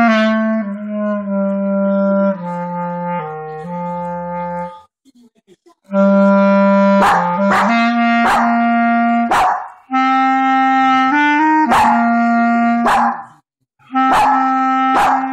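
A clarinet plays held notes, stopping briefly about five seconds in. From about six seconds a small long-haired dog howls and yips along with it in short repeated cries.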